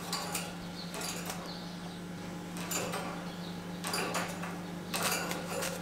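A small pet parakeet clambering on the wire bars of its cage: a handful of brief scratching, clicking rattles from claws and beak on the metal, over a steady low hum.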